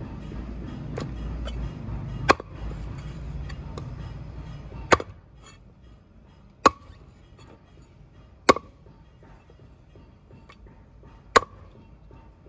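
Heavy steel chopping cleaver striking hard five times, slow and spaced out, each chop a sharp crack with a short metallic ring. A low rumble runs under the first two chops and stops about five seconds in.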